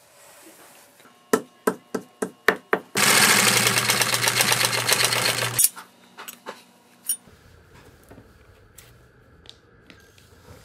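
Several sharp hammer taps, then a workshop machine running in a fast, even rhythm for about two and a half seconds before stopping abruptly, followed by a few scattered light taps.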